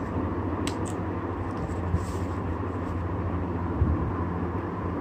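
Steady low background hum and rumble, with a few faint clicks and a soft knock about four seconds in.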